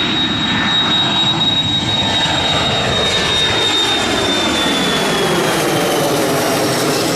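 Boeing 737 airliner's CFM56 jet engines passing close by, loud, with a high engine whine that slowly falls in pitch as the aircraft goes past.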